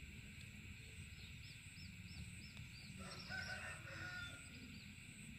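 A rooster crows faintly about three seconds in. Before it comes a quick run of high, repeated chirps.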